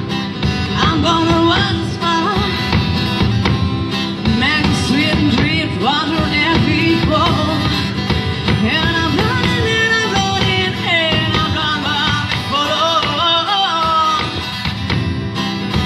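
An acoustic duo playing a song live: guitar with a melody line carried over it.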